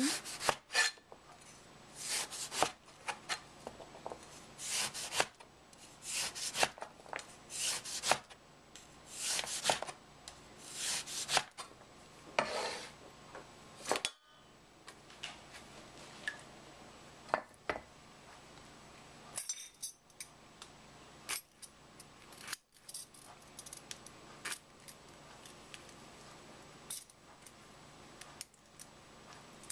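Cleaver slicing through an orange and striking a plastic cutting board, a cut about every second for roughly fourteen seconds. After that, scattered light clicks and taps as the slices are handled.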